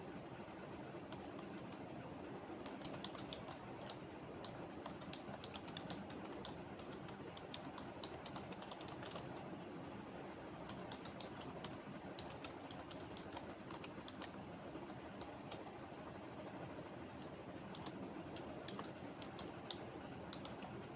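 Computer keyboard typing in irregular runs of keystrokes with short pauses, over a steady low background hum.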